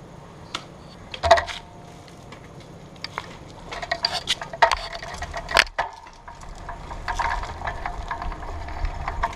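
Bicycle rattling, clicking and knocking as it gets going, picked up by a camera mounted on the bike, with a few sharper knocks and busier clatter once it is rolling.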